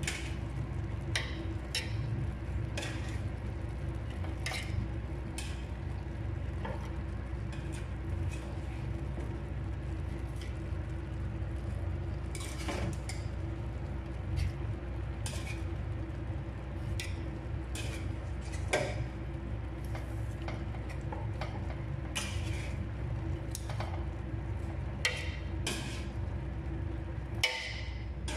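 Scattered clinks of a utensil against a stainless steel pot as roasted chicken pieces are laid on top of half-cooked rice, over a steady low hum.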